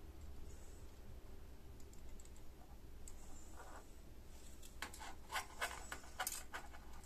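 A quick run of light clicks and taps, about eight in under two seconds past the middle, from small parts and tools being handled at a soldering bench, over a low steady hum.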